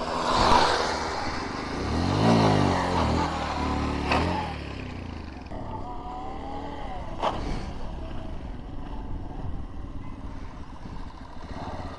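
Motorcycles riding past close by, engines revving. The loudest engine rises and then falls in pitch over the first few seconds as it passes, then fades to a quieter engine sound, with a sharp click about seven seconds in.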